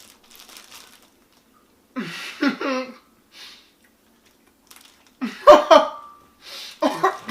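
A person's voice in short bursts, with two louder clusters about two seconds and five seconds in.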